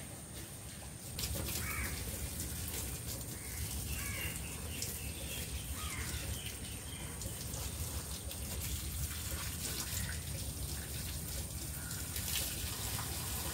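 Water running and splashing as garden plants are watered, starting about a second in, with crows cawing in the background.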